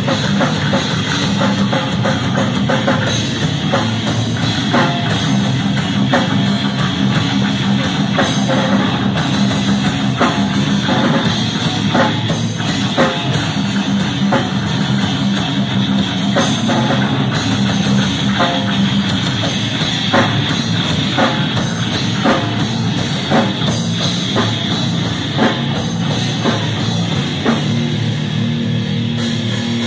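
Live heavy metal band playing loud: electric guitar, electric bass and a drum kit with many sharp drum hits.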